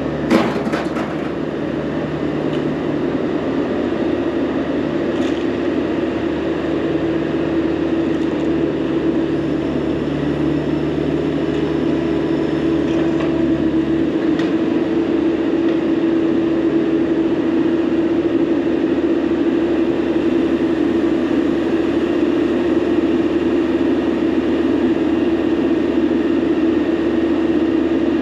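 Scrapyard material handler running, a steady engine and hydraulic hum that slowly grows louder as it swings its lifting magnet over the truck. A single clank sounds right at the start.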